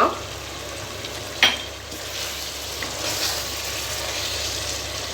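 Chicken and masala sizzling in a pressure cooker, with a single sharp clink of a utensil against the pot about a second and a half in.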